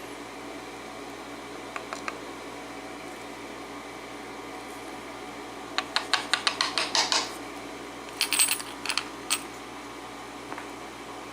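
Small metal padlock parts clicking and clattering against each other and a hard surface: a quick run of about a dozen light clicks, then a few louder ones a couple of seconds later.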